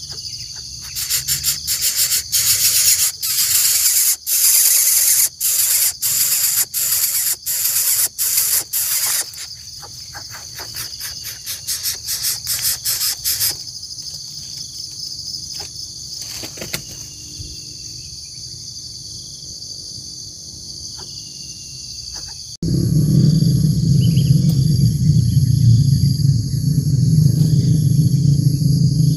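Steady high-pitched chirring of an insect chorus throughout. In the first part it comes with a run of sharp clicks, one every half second or so, then a quicker patter of clicks. About two-thirds in, a sudden loud low rumble joins it.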